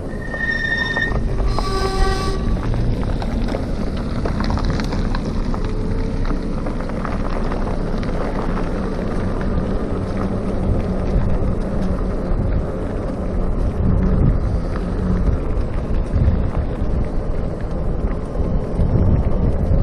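The RadMini electric bike's brakes squeal twice within the first two seconds: first a short high-pitched squeal, then a lower, fuller one. The brakes need adjusting. Wind buffeting on the microphone and road rumble from the moving bike fill the rest.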